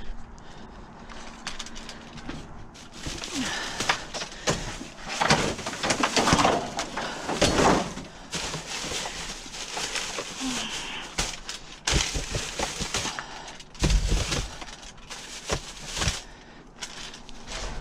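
Plastic bags and cellophane wrap crinkling and rustling as trash in a dumpster is rummaged through, with a few dull thumps in the second half.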